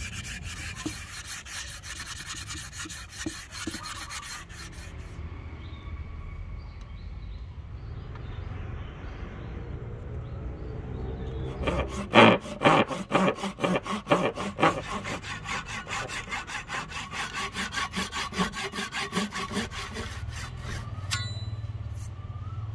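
Fast scratchy rubbing at first, then, from about halfway, a hand saw cutting into the end of a rosewood axe handle in quick, regular strokes. This is the kerf for the wedge that will lock the axe head on.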